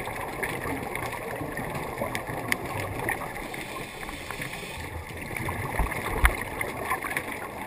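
Underwater sound on a scuba dive, heard through the camera housing: a steady gurgling hiss of the diver's regulator breathing and bubbles, with scattered small clicks and two low thumps about six seconds in.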